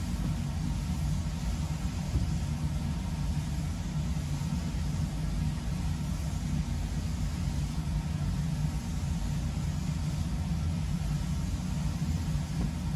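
Steady low mechanical hum with a faint hiss underneath.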